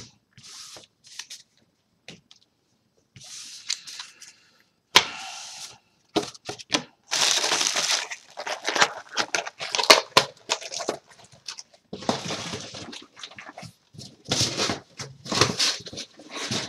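Trading cards and crinkly foil booster-pack wrappers being handled and gathered up: an uneven run of rustling and crackling bursts, with a sharp click about five seconds in.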